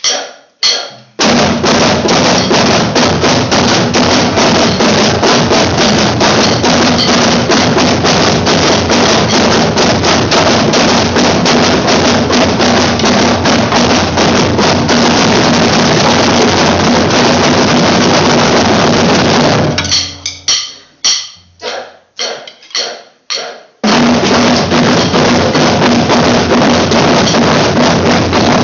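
Drumline of snare and bass drums playing a double-beat warm-up exercise together: a few separate strokes, then a long dense stream of strokes, breaking about twenty seconds in to a handful of separate hits with gaps, then the dense playing picks up again.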